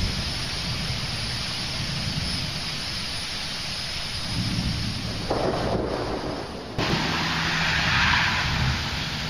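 Thunderstorm: steady heavy rain hiss with thunder rumbling low underneath. About seven seconds in the sound jumps abruptly and the rain hiss grows louder.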